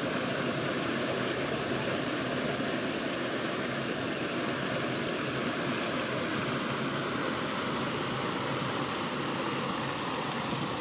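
Steady rushing of fast-flowing water in the Banias stream.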